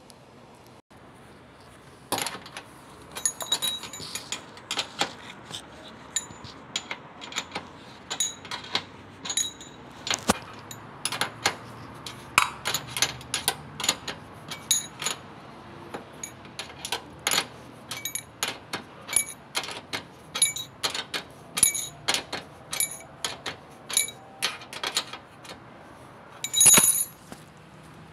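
Irregular metallic clicks and clinks, one or two a second, from working a washing machine's adjustable levelling foot to stop the machine rocking; one louder clink near the end.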